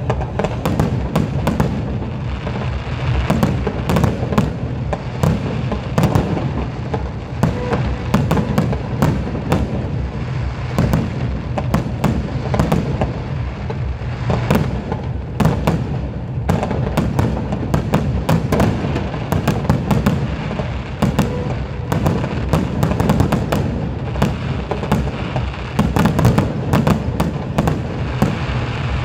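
Aerial fireworks display: shells bursting overhead in a dense, irregular run of crackling pops and bangs, several a second.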